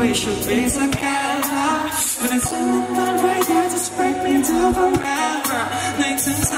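Male singer singing a Thai pop song live through the PA, over music with drum hits and a bass line.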